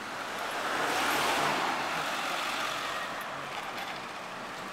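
A motor vehicle passing close by on the street. Its tyre and engine noise swells to a peak about a second in, then fades away.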